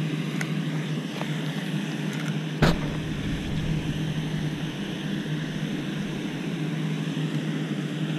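A steady low mechanical hum, like a distant engine or motor running, with one sharp knock about two and a half seconds in.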